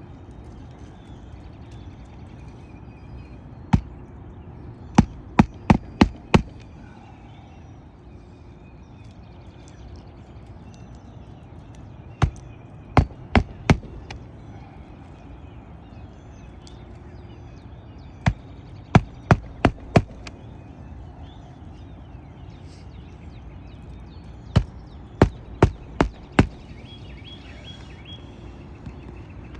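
Hammer driving roofing nails by hand into an asphalt shingle, four nails in turn, each driven flush. Each nail gets a first tap and then four or five quick, sharp strikes, with about six seconds between nails.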